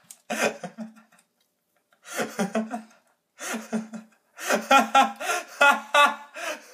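A young man laughing loudly in several bursts, the loudest a quick run of ha-ha pulses near the end.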